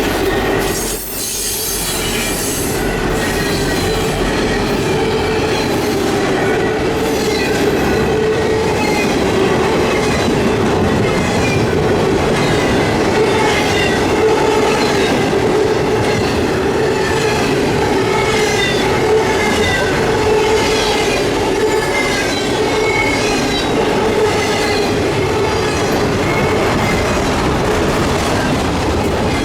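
A train rolling past at steady speed, its wheels squealing on the rails in wavering high tones over a continuous rumble, with a regular clickety-clack from the rail joints.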